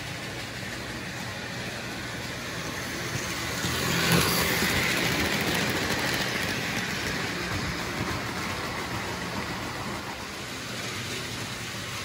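Märklin HO model train running on the track, a steady motor hum and wheel rumble that grows louder as it passes close about four seconds in, then slowly fades.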